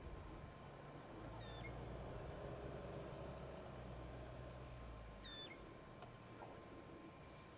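Outdoor riverside ambience: a bird gives a short falling whistled call twice, over a high pulsing chirr repeating about twice a second. A low rumble drops away about five seconds in.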